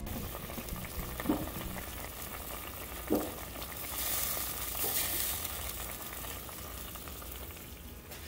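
Liquid sizzling in a stainless steel pot on the stove, with two light knocks against the pot. The hiss grows louder for about a second and a half, starting about four seconds in, as sauce is poured in from a bottle.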